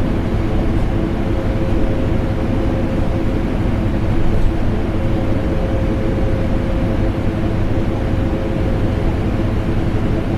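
Vacuum cleaner motor running steadily, mixed with an air conditioner's hum: a constant rush of noise with a deep rumble and a steady mid-pitched tone.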